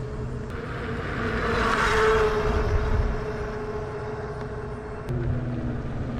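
Steady drone of a distant engine, with a broad rushing swell that builds and fades about two seconds in. About five seconds in the engine's sound shifts to a lower, pulsing note.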